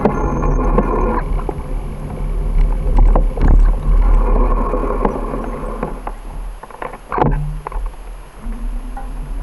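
Wind rumbling on the microphone of a camera riding along on a bicycle, with scattered sharp clicks and rattles from the bike over the road surface. A passing motor vehicle's engine fades out in the first second and another comes in near the end.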